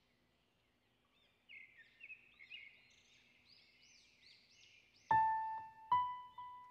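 Birds chirping in short repeated calls, starting about a second and a half in; from about five seconds in, a piano joins with single ringing notes about once a second.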